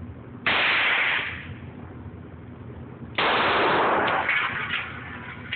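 Two 9mm Glock 19 pistol shots, the first about half a second in and the second about two and a half seconds later, each ringing on for about a second before fading.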